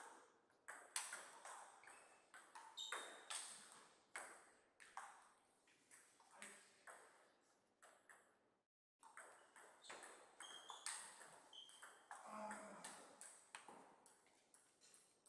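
Table tennis rallies: the ball clicking sharply off the rubber-faced paddles and the Donic table in quick, irregular runs of ticks. There is a short break of dead silence about nine seconds in.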